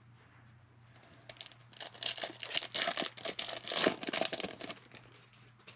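Foil wrapper of a 2020 Bowman Baseball card pack being torn open and crinkled by hand. A crackling rustle starts about a second and a half in and lasts about three seconds.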